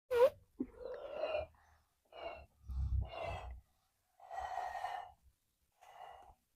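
Quiet, breathy blowing into a wad of slime to inflate it into a bubble, in about five or six short puffs with pauses between them.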